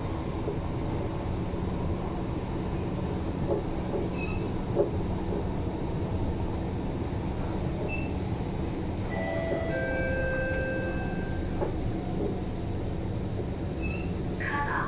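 SMRT C151 metro train running at speed, heard from inside the car: a steady rumble of wheels on rail under a constant low hum, with a few light clicks from the track. About two-thirds of the way through, brief high whining tones rise above the rumble.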